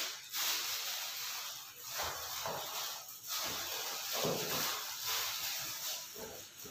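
Clear plastic packaging bag rustling and crinkling unevenly as it is handled and pushed into a cardboard box.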